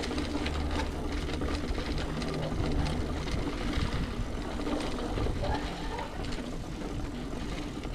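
Bicycle being ridden: steady tyre rumble with dense, rapid rattling clicks from the bike.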